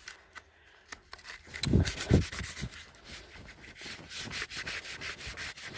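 A bicycle disc brake pad rubbed back and forth on cardboard: a run of scraping strokes starting about a second and a half in, with two dull thumps near the start of the run. The rubbing scours off the black glazed deposit on the pad that makes the brake squeal.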